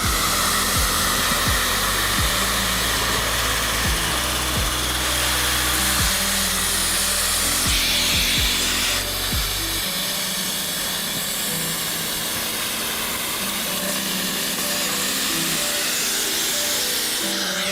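A drill boring an access hole through a Festool drilling template, with the dust extractor running on the template. The noise starts suddenly, grows brighter for a second or so about 8 s in, and stops just before the end. Background music plays underneath.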